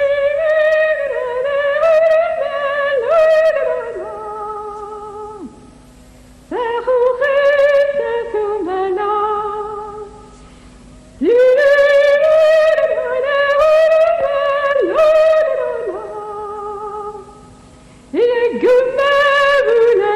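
A woman singing a Berber dance song solo, in four long phrases whose pitch slides and wavers in ornaments, with short breaks for breath between them.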